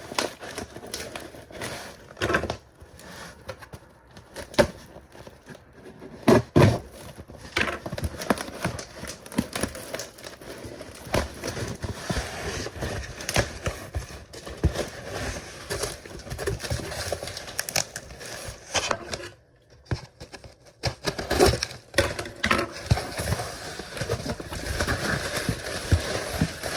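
A cardboard box and its packing being opened and handled: irregular rustling, crinkling and scraping with scattered clicks and a few knocks, the loudest about six and a half seconds in.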